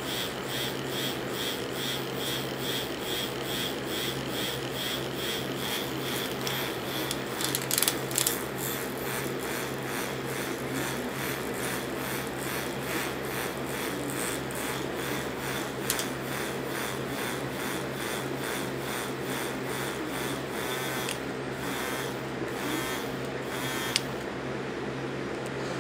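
Dual silver bullet vibrators running in an open palm: a steady buzzing hum with a rasping rattle where the metal shells touch. The buzz pulses about two to three times a second at first, then changes pattern about eight seconds in as the controller steps to another pulsation mode. There are a few sharp clicks, and the rattle drops away near the end.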